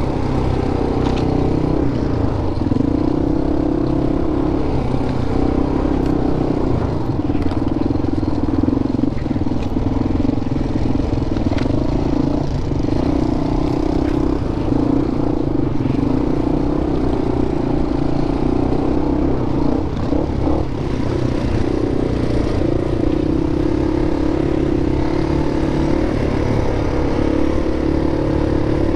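Single-cylinder 400 cc dual-sport motorcycle engine running steadily on a dirt trail, its pitch drifting up and down with the throttle and rising near the end. There are a few brief clicks and rattles.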